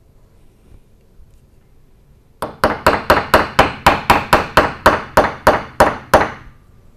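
Small ball-peen hammer tapping a steel roll pin down into an AK trigger held on a wooden block: a fast, even run of about eighteen sharp, ringing strikes, about five a second, starting about two and a half seconds in and stopping near the end.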